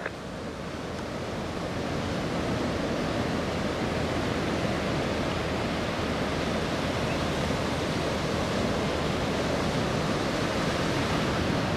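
Distant steady roar of four F-16 fighter jets' engines, building over the first couple of seconds and then holding level.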